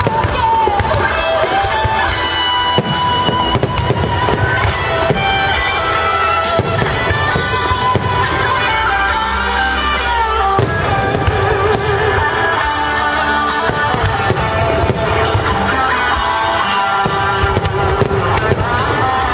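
Music with a steady pitched line, over the repeated sharp bangs and crackles of aerial fireworks bursting.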